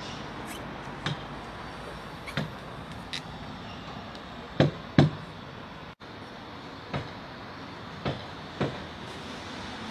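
Caulking in the background of a wooden ship: a caulking mallet striking a caulking iron in sharp, irregular knocks roughly once a second, the two loudest close together about halfway through, driving caulking into the hull's plank seams.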